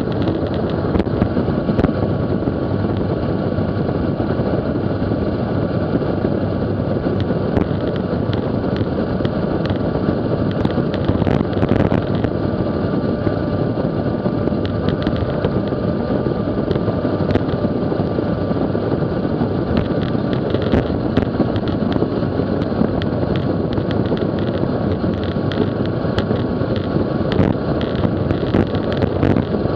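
Wind rushing over the microphone of a camera on a road bike coasting downhill at about 50 mph: a loud, steady, dense rush with a faint thin whine running through it.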